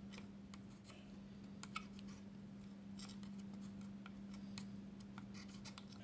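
Faint scratching and light ticks of a soldering iron tip and fingers on a small circuit board as a diode is being desoldered, over a steady low hum.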